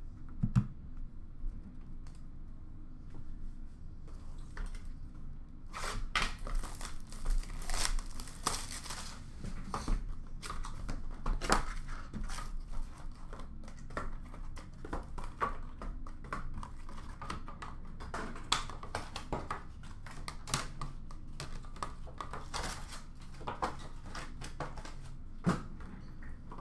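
Paper, cardboard and plastic packaging of sealed trading-card boxes being handled, crinkled and torn open: a run of irregular crinkles, rustles and small clicks, starting about four seconds in and busiest for several seconds after that.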